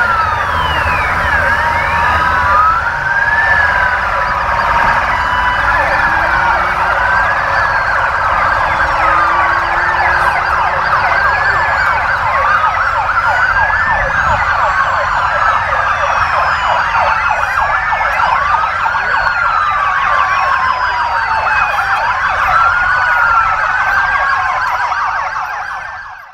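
Many emergency-vehicle sirens from a convoy of police and fire vehicles sounding together, their wails rising and falling out of step with one another over a dense, rapid warbling. The sirens fade out near the end.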